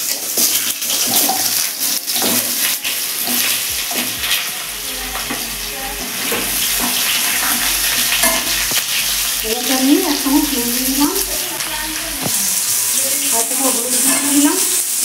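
Cubed potatoes sizzling as they fry in hot oil in a non-stick kadai, with the spatula scraping and tapping against the pan as they are stirred.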